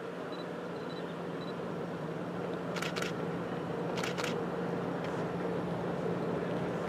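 A steady low engine hum under a wash of wind and water noise, with two short hissing bursts about three and four seconds in.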